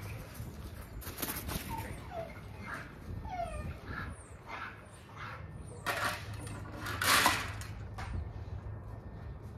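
A dog whimpering in short falling whines, with a few louder noisy rasps about six and seven seconds in.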